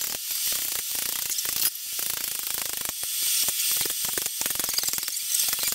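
Ratchet handle clicking rapidly in repeated strokes as it turns the screw press that draws a camshaft bushing into a D115 engine block.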